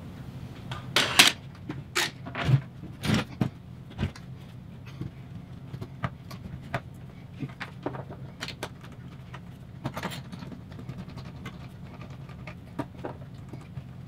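Woodworking clamps being set and tightened on an epoxy-glued cabinet door frame. A few sharp knocks and clatters come in the first few seconds, then lighter clicks and ticks as the clamps are snugged down, over a steady low hum.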